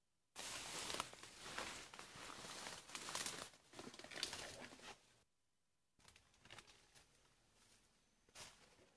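Rustling and crackling of leafy undergrowth and bamboo stems, dense and close for the first few seconds. It drops out briefly, then returns fainter with scattered snaps and one short louder rustle near the end.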